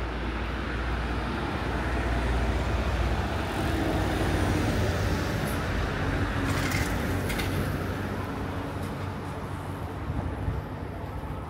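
A vehicle passing in city traffic: a low rumble and hiss that swells over the first few seconds and slowly fades toward the end.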